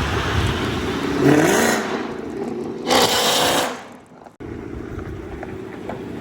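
Hellcat-powered Chrysler 300's supercharged V8 accelerating past, its note rising about a second in and a loud rush about three seconds in, with wind on the microphone. The sound falls away and then cuts to a steadier, quieter background.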